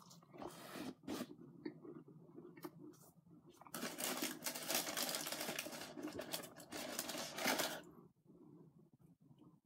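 Close-up chewing of fried food, with soft wet mouth clicks, then a dense crackling rustle from about four to eight seconds in.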